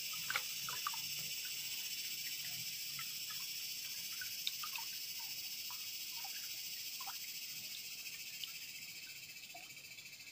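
Insects droning: a steady, high-pitched buzzing chorus that slowly fades toward the end, with scattered faint ticks and drips.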